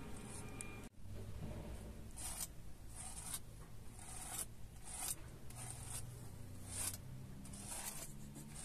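Rhythmic rubbing strokes, about one a second, over a low steady hum; the sound drops out briefly about a second in.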